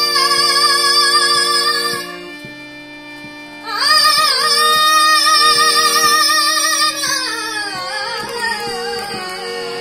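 A high voice singing a melody over steady held accompanying notes. It holds long notes with vibrato, stops for about two seconds, comes back, and near the end slides downward through a falling phrase.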